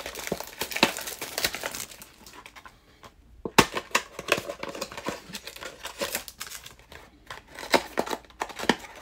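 Foil wrapper of a Panini Select trading card pack crinkling and tearing as it is opened by hand, in irregular sharp crackles. There is a short lull about three seconds in, then a sharp crack.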